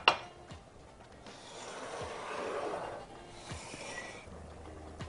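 A bowl set down on the counter with a clink, then a utensil scraping and stirring boiled potatoes in a glass mixing bowl for a couple of seconds.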